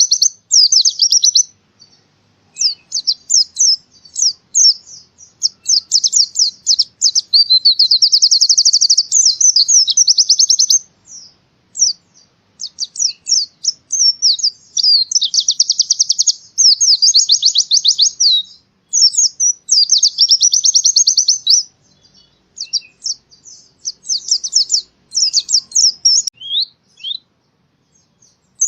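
A white-eye (pleci) singing a fast, high, twittering song in bursts of one to several seconds, broken by short pauses.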